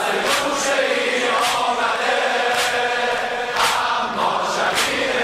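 A male voice singing a Persian Shia devotional song (a noha) in long drawn-out notes, over a beat that falls about once a second.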